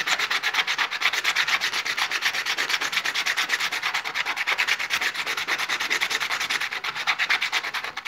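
A rough stone rubbed back and forth by hand on wet sandpaper, a rhythmic gritty scraping of about six strokes a second. The stone's face is being ground flat to open it and show its pattern.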